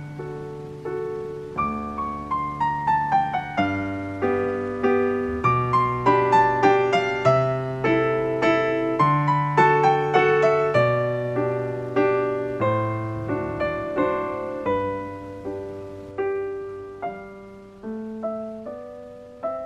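Background piano music: a gentle solo piano piece with notes struck one after another in a flowing rhythm.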